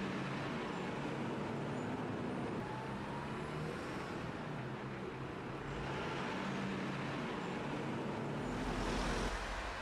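Steady rumbling background noise with a low hum, swelling a little near the end.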